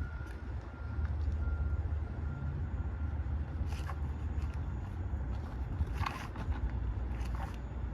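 Semi-truck driving: a steady low rumble of engine and road, with a few short clicks or rattles.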